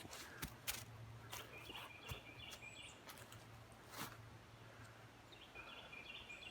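Footsteps on the woodland floor, a few scattered steps, with a bird's short series of repeated notes sounding twice in the background.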